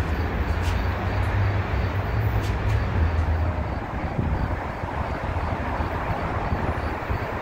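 Freight train rumbling along the tracks with a steady low rumble that eases off about three seconds in, leaving a steady noise.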